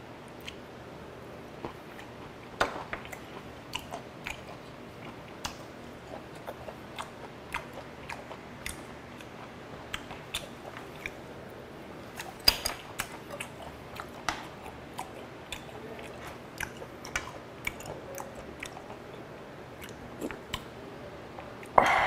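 Close-miked chewing of slices of raw fish sashimi: a steady run of small wet mouth clicks and smacks, busiest about halfway through, with a louder short burst right at the end.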